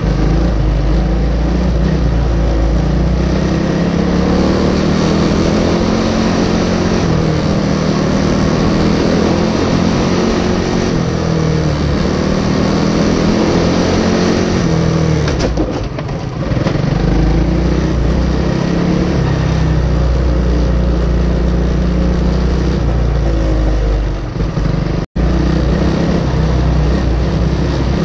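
Racing kart's Briggs & Stratton Animal single-cylinder engine running flat out, heard on board. Its pitch climbs steadily and then drops as the driver lifts, twice for a corner, about halfway and near the end, before climbing again.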